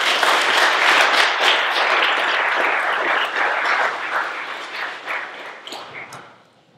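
Audience applauding, the clapping thinning to scattered claps and fading out over the last few seconds.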